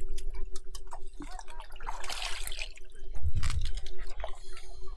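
Hands and a small metal bowl working in wet mud and shallow muddy water: irregular squelching and dripping, with a splash about two seconds in and a low thud a little later.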